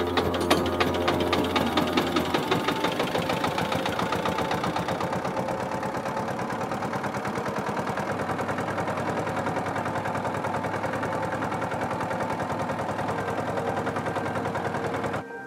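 Small inboard engine of a wooden river boat running with a rapid, even beat, cutting off suddenly near the end.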